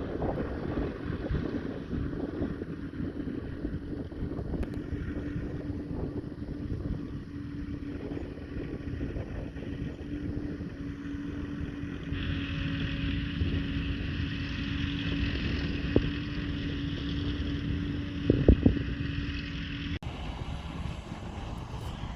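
Heavy farm machinery running steadily during silage harvesting: a continuous engine drone with a constant hum, a couple of short knocks about eighteen seconds in, and an abrupt change in the sound near the end.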